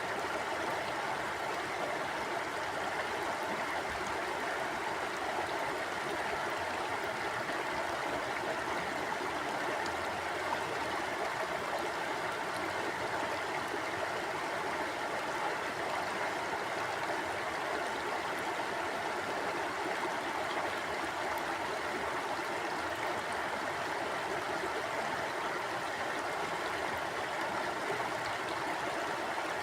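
Mountain stream flowing over rocks: a steady, even rush of water with no pauses or changes.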